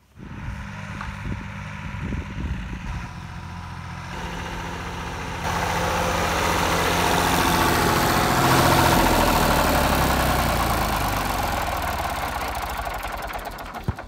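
Massey Ferguson 135 tractor engine running, getting louder about five seconds in, loudest a little past halfway, then easing off near the end.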